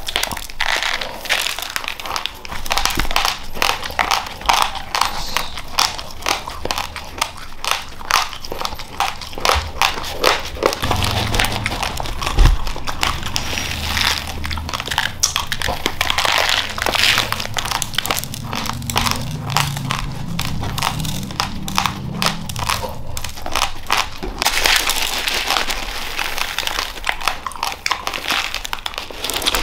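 Raw white rice being crunched between the teeth, a dense run of small cracking clicks, mixed with the rustle of a plastic bag and the patter of dry grains as a hand scoops rice out of it.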